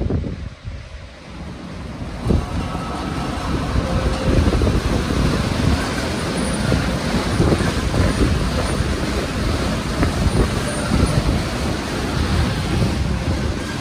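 Spinning side brushes of an Istobal M'NEX 22 rollover car wash scrubbing against the car, heard through the car's glass: a steady, loud swishing of bristles over the body, building up about two seconds in.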